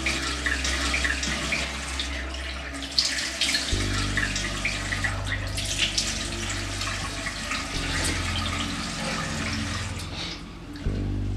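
Bathroom sink tap running into a ceramic basin, with splashing as water is scooped up to the face, shut off suddenly about ten seconds in. A low droning music tone sounds underneath.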